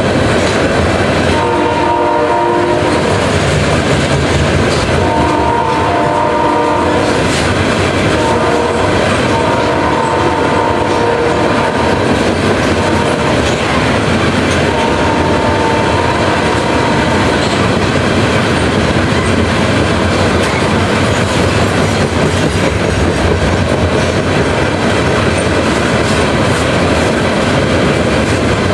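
Freight train of tank cars rolling past at speed: a steady loud rumble of steel wheels on rail with clickety-clack over the rail joints. Several held high tones of a second or two rise over it in the first two-thirds.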